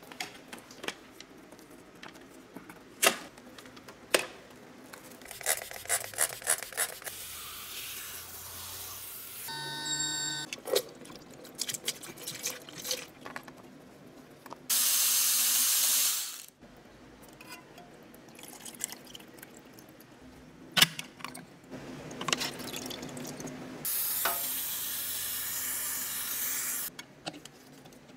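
Fluid draining from a car's drain plug into a plastic measuring jug, with sharp clicks and knocks of hand tools on the plug and pan, and a few longer stretches of steady pouring hiss.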